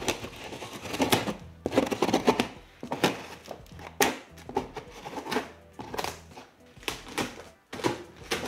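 A knife slitting the packing tape along a long cardboard box, in a series of irregular scratchy cuts, rips and taps on the cardboard.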